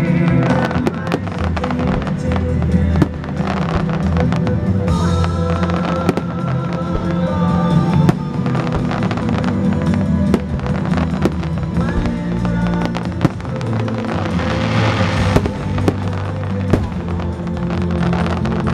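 Aerial fireworks bursting overhead: many sharp bangs and crackles in quick succession, over loud music played for the show.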